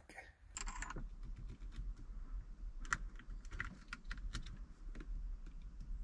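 Faint, irregular small plastic clicks and taps from a VW Beetle's automatic gear shift knob being worked loose by hand: its release trigger is pressed, and the linkage inside is probed with a small pick tool.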